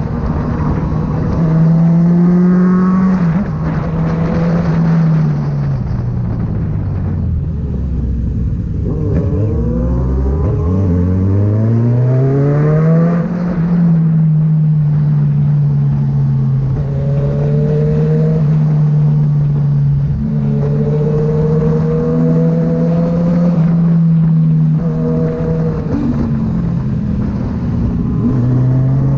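Kawasaki Z900's inline-four engine running through an aftermarket Firetong exhaust at a steady pitch. Around six seconds in, the revs fall away to a low rumble. From about ten seconds in they climb back up and then hold steady again.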